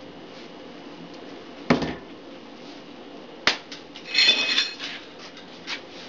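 Bicycle floor pump and wheel being handled after inflating a tubular tire: two sharp knocks, then a short hiss of air with a slight whistle a little past halfway, and a few light clicks.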